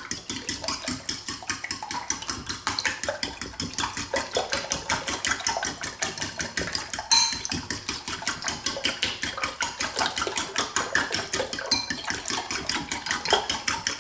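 Metal fork beating eggs in a ceramic bowl: fast, even clinking of the fork against the bowl, about four or five strokes a second, with one sharper clink about seven seconds in.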